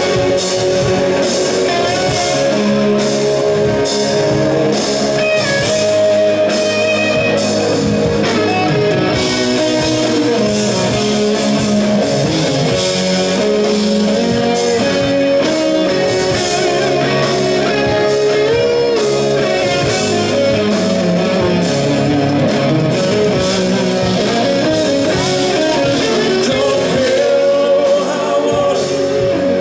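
Live rock band playing, with electric guitar, drums and a singer.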